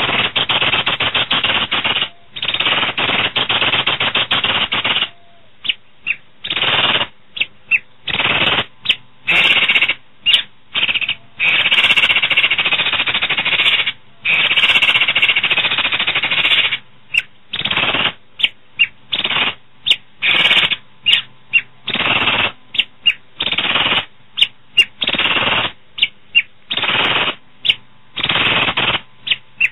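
Asian pied starling (jalak suren) singing hard: loud, harsh, rattling chatter in bursts from a fraction of a second to a few seconds long, with short breaks between them.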